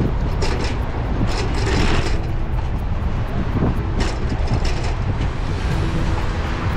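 Wind buffeting an action camera's microphone while cycling: a steady, loud low rumble, broken by a few short, brighter scraping noises.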